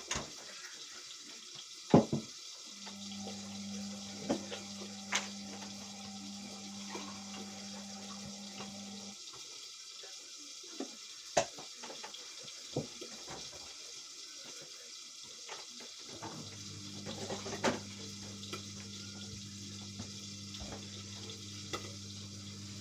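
Indesit washing machine taking in water: a steady hiss of water running into the machine, with a click about two seconds in. A steady low hum starts about three seconds in, stops around nine seconds and comes back around sixteen seconds.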